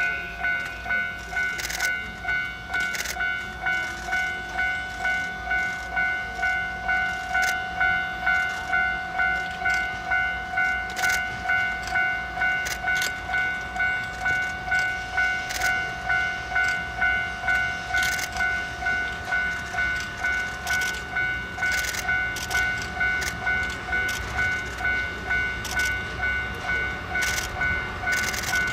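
Railway level-crossing alarm ringing steadily at about two rings a second, over the low rumble of a train that swells near the end, with scattered sharp clicks.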